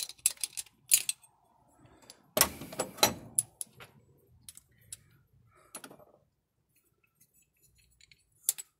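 Small metal parts clinking and clicking as they are handled and refitted by hand. The sharp clicks are scattered, with a denser rattle about two and a half seconds in, another near six seconds, and a last click near the end.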